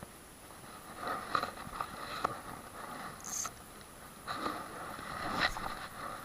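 Small spinning reel being cranked in two short spells of retrieve, a rasping gear whir with sharp clicks, while a walk-the-dog pencil lure is worked back.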